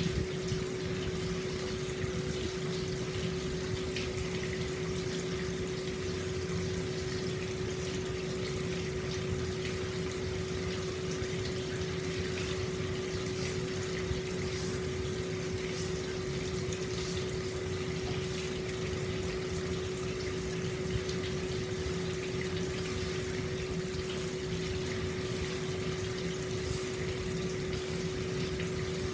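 Hot spring water flowing steadily into an open-air bath, with a steady hum underneath.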